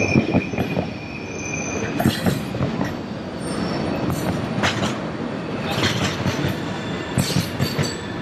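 Freight train of tank cars and boxcars rolling past, steel wheels knocking over the rail joints in an uneven clatter. A thin high wheel squeal sounds for the first couple of seconds, and short hissing screeches come and go.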